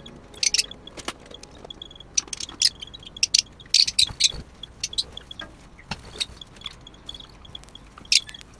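Small pet birds chirping: many short, sharp, high chirps in irregular clusters.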